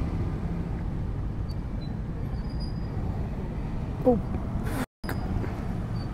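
Motorcycle engine running at low speed in slow traffic, a steady low rumble with road noise. About four seconds in, a brief falling vocal sound; the audio drops out for a split second just before five seconds.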